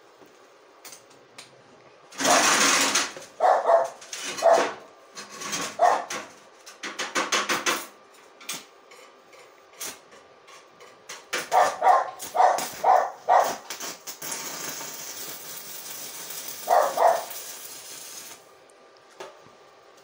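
Stick-welding arc from a basic-coated LB52U electrode, crackling and hissing in several stretches, with the longest steady sizzle near the end. A dog barks in short runs over it, with a quick series of barks about two-thirds of the way through.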